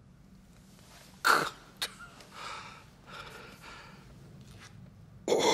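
A man coughing and gasping for breath: a sharp cough about a second in and another near the end, with ragged breathing between.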